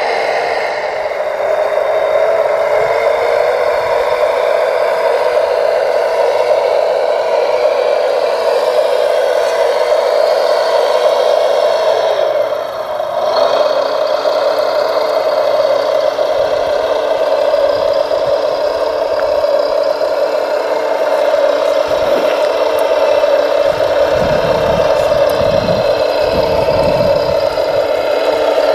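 Radio-controlled scale Volvo L250G wheel loader pulling a loaded dump trailer over gravel: a steady, high motor-and-gear whine, with a brief dip in pitch about halfway through. Some rattling clatter comes near the end.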